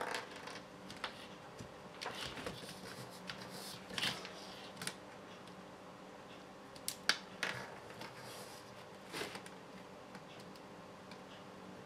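Scattered small clicks and taps of screws, nuts and plastic parts being handled while assembling an RC truck's front steering, over a faint steady hum.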